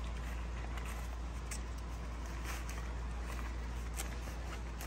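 Faint rustling and a few light ticks of a nylon carry bag as a folding camp chair is pulled out of it, over a steady low rumble.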